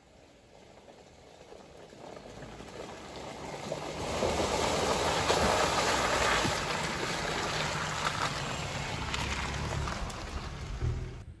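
Dacia Duster 1.3 TCe four-wheel-drive SUV driving up close and past, its turbocharged four-cylinder petrol engine running under light throttle as the tyres churn and squelch through wet mud and leaf litter. The sound swells over the first four seconds and is loudest as the car draws level, then cuts off suddenly at the end.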